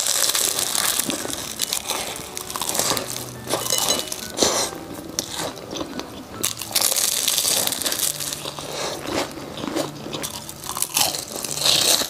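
Close-miked biting and chewing of a flaky, croissant-crust egg tart topped with mochi: repeated crisp crunches and crackles of the layered pastry throughout.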